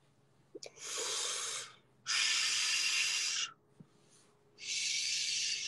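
Three long, hard breaths right at a phone's microphone, each lasting about a second, with the second one the longest.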